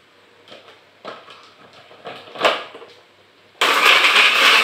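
A few light clicks and knocks as the plastic blender jar is handled and set on its base. About three and a half seconds in, a small countertop blender switches on and runs loudly and steadily, grinding chillies, shallots, garlic and shrimp paste with liquid into a spice paste.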